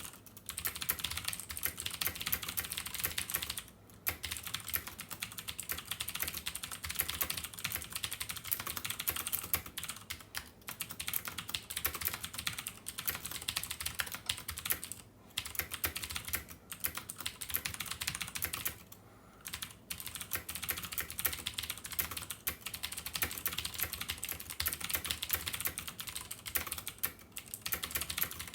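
Fast touch-typing on a computer keyboard, at about a hundred words per minute: a dense, continuous patter of key clicks, broken by a few brief pauses.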